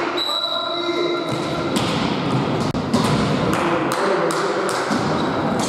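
Sounds of an indoor volleyball game: irregular thuds and taps of a ball, with players' calls, echoing in a large gym.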